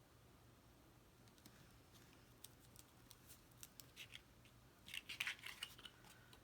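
Faint, scattered clicks and crinkles of small cardstock pieces being handled and pressed together, thickening into a brief cluster about five seconds in.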